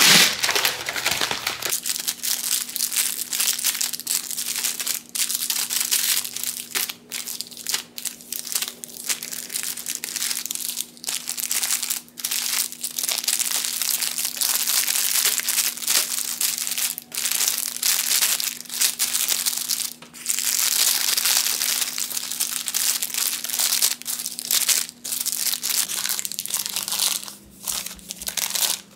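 Continuous crinkling and crumpling of handled material, broken by many brief pauses, over a faint steady hum.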